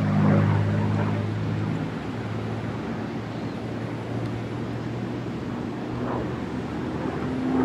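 P-51 Mustang's V-12 Merlin engine droning in flight, loudest for the first second or two and then easing off a little as the aircraft moves away.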